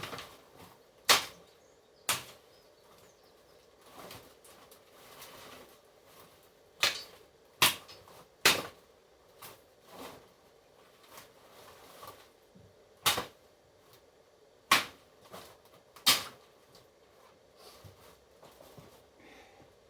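Sharp knocks and snaps from tree-cutting work, about eight in all at irregular intervals, a few seconds apart.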